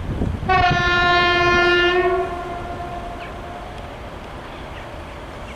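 2TE116 diesel locomotive's horn sounding one long blast of about a second and a half at a single pitch, trailing off after it stops, over wind rumbling on the microphone.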